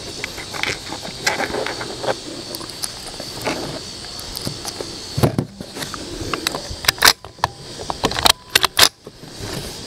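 Small metallic clicks and rattles of .22 LR cartridges being handled and loaded for a Ruger 10/22, with a dull thump about five seconds in and a few sharper clacks near the end.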